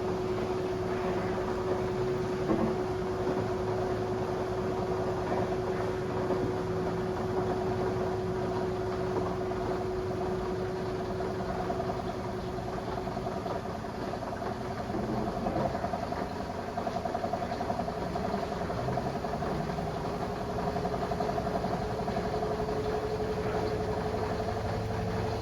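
Washing machine on its spin cycle with a single bulky bedspread inside, the drum and motor running steadily and speeding up. The motor's whine steps up in pitch about halfway through.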